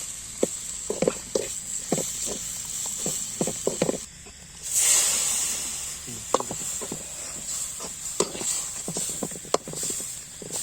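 Spiced masala sizzling in a hot pan, with short scrapes and knocks of a spatula stirring it. About five seconds in, after a brief gap, the sizzling surges louder for a second or so.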